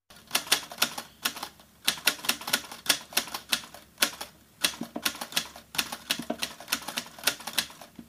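Typewriter sound effect: a run of sharp key clacks, about three or four a second, broken by a few short pauses.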